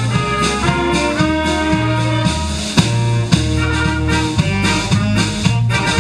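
Youth wind band playing live: trumpets and flutes carry the tune over a bass line that moves on a steady beat, with a few sharp percussive hits.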